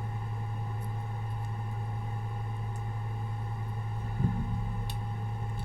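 Steady low electrical hum with a faint thin tone above it, and a small click near the end.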